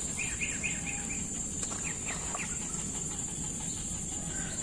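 A bird calling: a quick run of about five short notes, then three more about a second later, over a steady high-pitched drone of insects.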